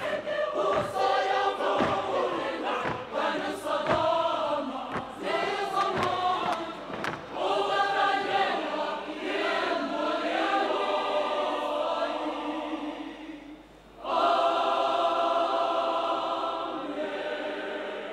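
Large mixed youth choir singing, with sharp percussive beats under the singing in the first half. After a short drop, the choir holds one long chord that fades away near the end.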